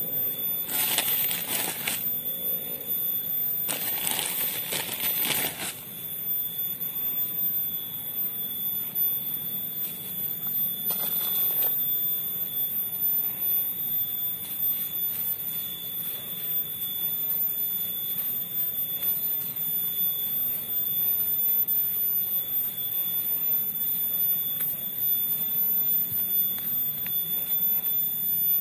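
Hand trowel scraping and stirring soil and rice husks in a planting hole: a few strokes in the first six seconds and one more about eleven seconds in, over a steady high-pitched whine.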